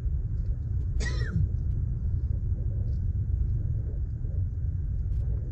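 Steady low rumble of a car driving on a snow-covered road, heard from inside the cabin. A brief high squeak sounds about a second in.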